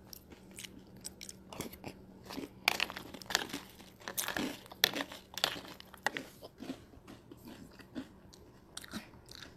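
Irregular crunching and crackling close by, several small clicks a second, over a faint steady hum.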